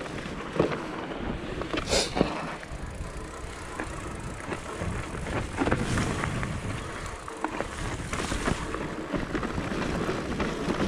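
Propain Ekano electric mountain bike riding a trail: tyres running over the dirt, with the bike rattling and knocking over bumps and a sharp clack about two seconds in.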